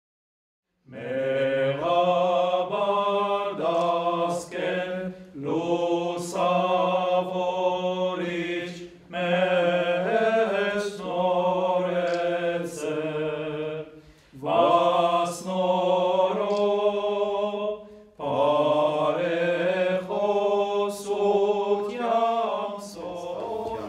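Sacred chant: voices singing a slow melody over a steady held drone, starting about a second in and going in phrases of a few seconds with short breaks.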